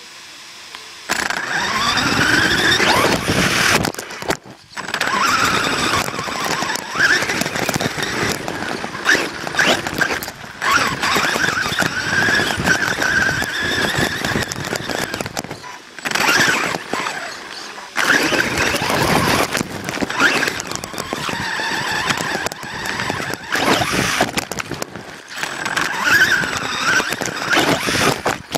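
Motor and gear whine of an HSP radio-controlled car, rising and falling with the throttle, with the tyres crunching over dirt, heard from a camera mounted on the car. The whine drops off briefly several times as the throttle is let off.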